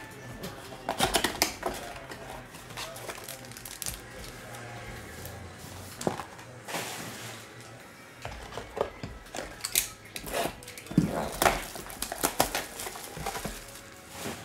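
Cardboard trading-card boxes and plastic shrink wrap handled on a table: scattered crinkling, with taps and knocks as boxes are moved and set down.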